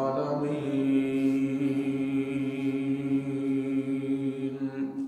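A man's voice chanting a sermon's opening Arabic invocation in one long, drawn-out melodic note, carried over a microphone. The note holds for about five seconds and fades just before the end.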